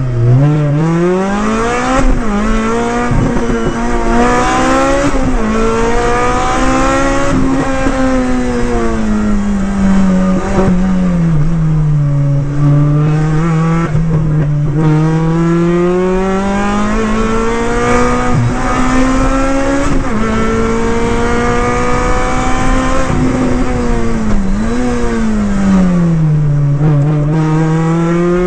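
Rally car engine heard from inside the cockpit, running hard with its pitch swinging up and down every few seconds as the driver accelerates and lifts through the bends.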